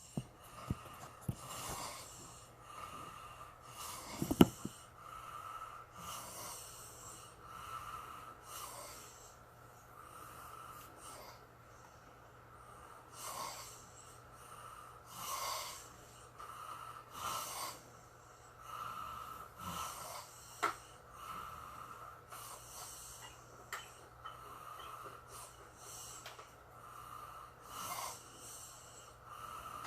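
A person breathing close to the microphone, soft irregular breaths every second or two, with one sharp knock about four seconds in.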